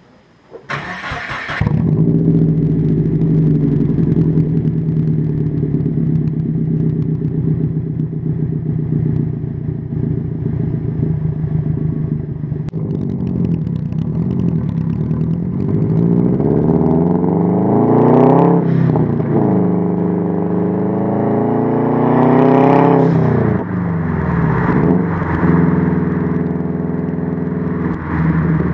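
2011 Subaru WRX's turbocharged flat-four engine, breathing through a Crawford Gymkhana exhaust, catching about a second in and settling into a steady idle. Later it revs up and drops back twice, with a few smaller blips, before returning to a steady note.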